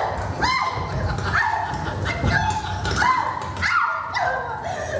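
Dog-like yelping calls repeated about once a second, each rising quickly in pitch and then holding briefly, over a low rumble.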